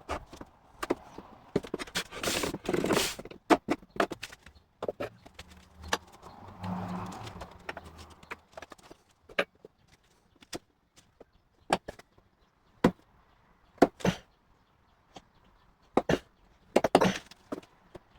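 Irregular sharp clicks and knocks of tools and metal door hardware being handled, with a few seconds of rustling near the start and a brief low hum about six seconds in.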